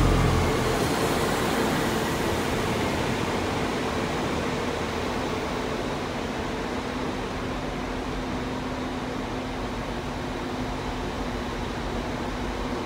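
A train's rumble fading slowly over the first few seconds, leaving a steady hum and hiss.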